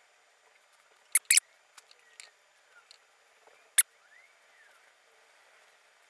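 Watercolour brush working on paper: faint soft brushing, broken by sharp clicks, a quick pair about a second in and a single loud one near the middle.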